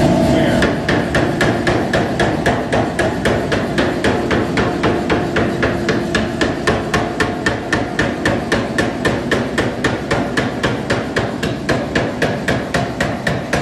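Power hammer's ram pounding a glowing billet of Damascus steel in a steady, even rhythm of about three to four blows a second, forging the billet down to dimension.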